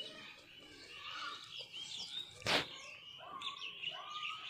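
Small birds chirping and twittering in the background, with one brief, loud crackling noise about two and a half seconds in.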